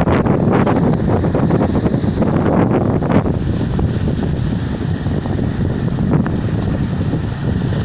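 Sea waves washing on the shore, with wind buffeting the microphone in a steady loud rumble.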